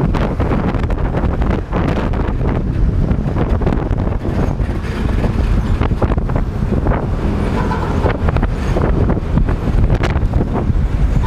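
Wind buffeting the microphone of a moving motorcycle, with a steady low rumble of engine and road noise from the ride in traffic.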